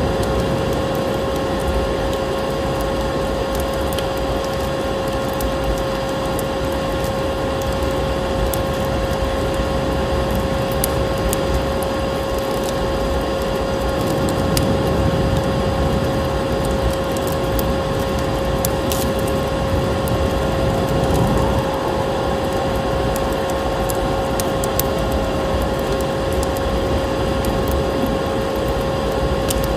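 Vacuum cleaner running steadily, its motor giving a constant whine, layered with the crackle and snap of a wood fire and the rushing of snowstorm wind.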